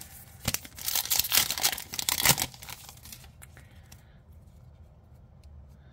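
Foil trading-card booster pack wrapper being torn open and crinkled, a loud rough tearing for about two seconds, then only light rustling.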